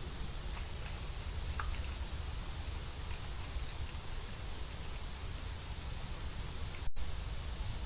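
Steady outdoor hiss and low rumble picked up by the nest webcam's microphone, with a few faint ticks in the first half. The sound drops out for an instant about seven seconds in, then comes back slightly louder.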